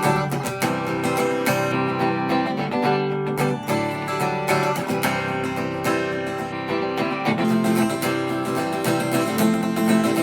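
Acoustic guitar strumming chords in a steady rhythm: an instrumental passage between sung lines of a song.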